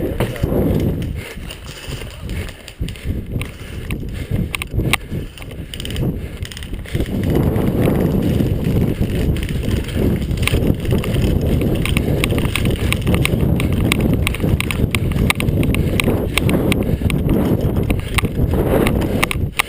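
Footsteps and the rustle and knocking of clothing and gear, with sharp clicks throughout and a low rumble on the microphone that gets louder about seven seconds in.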